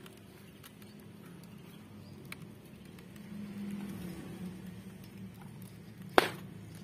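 Wood fire crackling in a stone hearth, with scattered small snaps and one loud sharp crack near the end.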